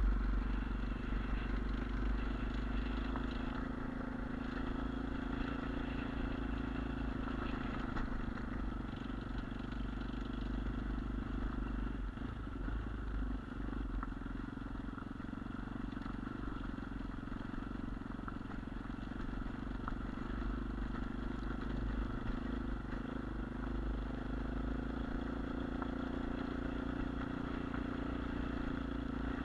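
Sprint Apollo RX 250 dirt bike's single-cylinder engine running steadily under way off-road, with a low rumble beneath it. The engine note eases off briefly about twelve seconds in.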